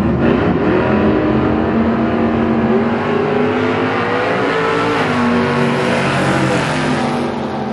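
Drag-race car launching from the line at full throttle and accelerating past. Its engine pitch climbs and drops back at each upshift, about three times.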